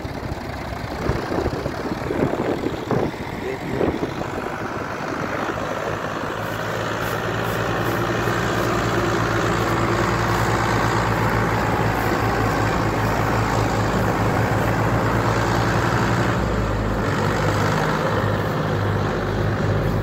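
Two Mahindra 265 DI tractors' three-cylinder diesel engines running hard under load, one tractor towing the other as it pulls a loaded trailer. The steady engine note grows louder about a third of the way in and shifts near the end.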